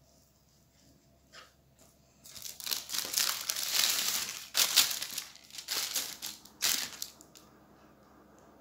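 A butter paper sheet crinkling as it is lifted and folded by hand: loose crackling that starts about two seconds in and goes on for about five seconds, with sharper crackles near the middle and toward the end.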